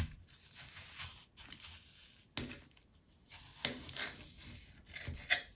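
Kitchen knife slicing a raw apple into rings: quiet crisp crunching with a few sharp clicks.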